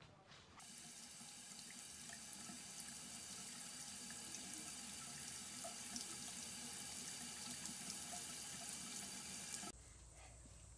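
A bathroom sink faucet running a thin, steady stream of water into the basin. It starts just under a second in and stops suddenly near the end.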